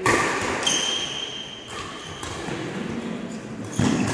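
Badminton doubles rally: sharp racket hits on the shuttlecock, the loudest right at the start and another near the end, with lighter knocks between. Just after the first hit there is a brief high squeak of shoes on the court.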